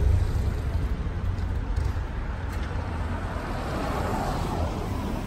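Low rumble of a nearby motor vehicle engine, loudest at the start and easing off after about a second, then a steadier, quieter street traffic rumble.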